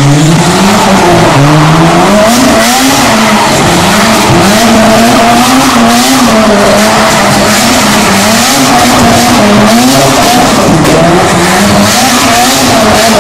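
Mazda RX-7 FD's turbocharged 13B-REW twin-rotor rotary engine, full-bridgeported and running through a 4-inch exhaust, held at high revs with its pitch rising and falling as the throttle is worked. Its rear tyres squeal and skid as the car spins doughnuts.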